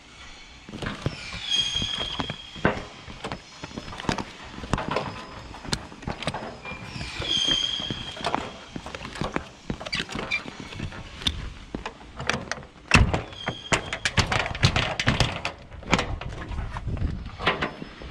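A curtainsider trailer's side-curtain strap buckles are being unhooked by hand, giving repeated metal clacks, knocks and rattles, with two short high squeaks.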